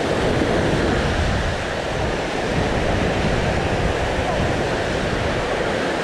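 Steady wind buffeting the microphone with a low rumble, over the continuous wash of sea surf.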